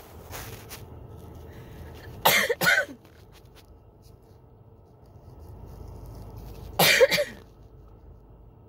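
A person coughing in a fit set off by a tickle in the throat: two quick coughs about two seconds in, then another short burst of coughing about seven seconds in. It is heard inside a car, over a low steady hum.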